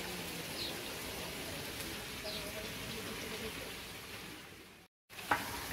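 Vegetables sizzling steadily in hot oil in a large iron karahi over a wood fire, with a constant hiss. It fades and cuts out briefly near the end.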